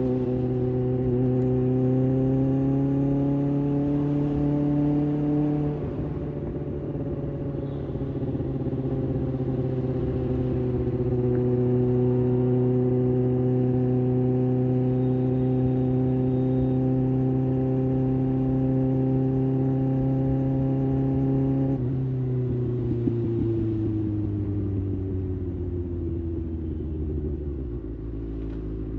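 Kawasaki ZX-6R's 636 cc inline-four engine on the move. It pulls with slowly rising pitch for the first few seconds and eases off at about six seconds. It then holds a steady cruise, and over the last several seconds it drops in pitch as the bike slows.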